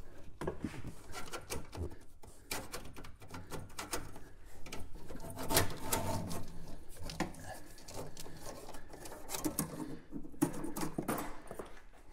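Scattered clicks, scrapes and light knocks as the old brake hard line is worked up and out through the engine bay by hand.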